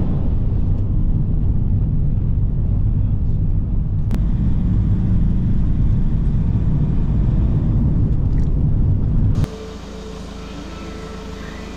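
Engine running with a steady low rumble, cutting off abruptly about nine seconds in to a quieter steady hum with a faint high tone.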